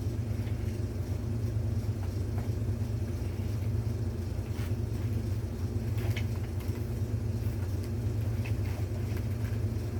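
Steady low background hum with a few fixed tones layered in it, and a few faint clicks of handling as a vacuum bag is worked into place.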